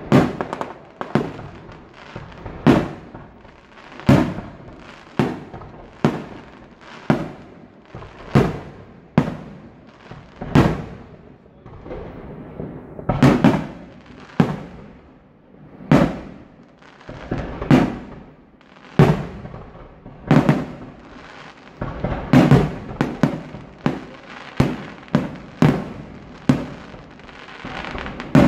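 Aerial firework shells bursting in quick succession, a loud bang about every second, each trailing off in an echo.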